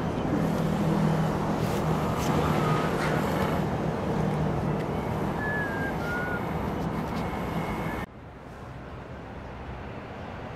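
Urban street ambience: a steady low vehicle engine hum and traffic noise, with a few sharp snaps of playing cards put down on the table and a few short high chirps. About eight seconds in it drops suddenly to a quieter outdoor background hiss.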